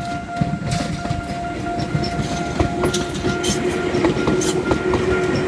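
Railroad crossing warning bell ringing in a steady rapid rhythm while a Tobu Sano Line train passes over the crossing. The wheels clack over the rail joints, and a low hum joins about halfway through.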